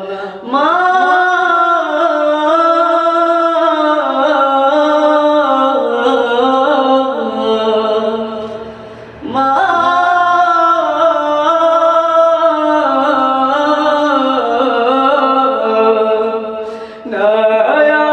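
A young man singing unaccompanied in Bengali, a cappella, in long drawn-out phrases that slide between notes. He breaks off for breath just after the start and again near 9 and 17 seconds.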